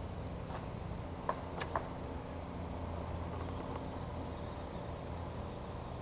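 Wind rumbling on the microphone, with a few light clicks or knocks about a second and a half in.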